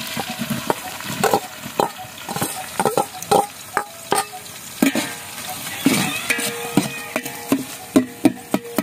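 A slotted metal spoon scraping and knocking against a metal kadai in irregular strokes, stirring diced boiled potatoes into hot tempered oil, which sizzles.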